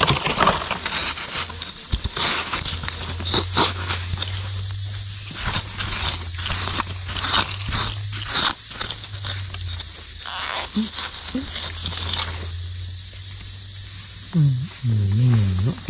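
A steady high-pitched drone of insects, the loudest sound. Over it come scattered scrapes and clicks of a knife digging into damp forest soil to unearth buried earthstar (hed phao) mushrooms.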